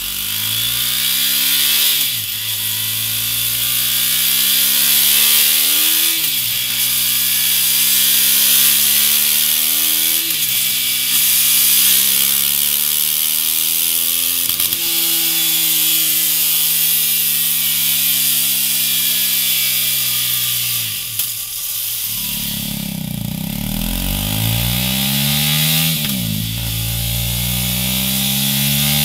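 KTM 390 Duke's single-cylinder four-stroke engine pulling hard on a chassis dyno, rising in pitch through the gears with a sharp drop at each upshift, first through its stock exhaust. About three quarters of the way through it starts a new pull through a MIVV Suono slip-on silencer, with a fuller, deeper low end, rising and shifting again.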